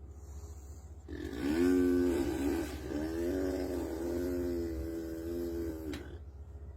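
A toddler imitating a weed eater with his voice: one long droning engine-like hum, starting about a second in and lasting about five seconds, with a rise in pitch at the start and a slight wobble.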